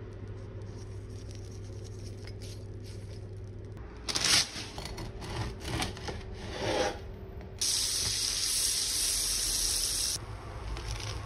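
Serrated bread knife sawing through a crusty baguette: a run of rasping strokes, then a few seconds of steady hiss.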